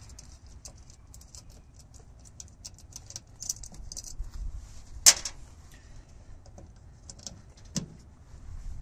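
Small metal clicks and scrapes as a nut, washer and wire ring terminal are worked by hand on a starter solenoid's terminal stud. One sharp metallic click about five seconds in and another near the end stand out.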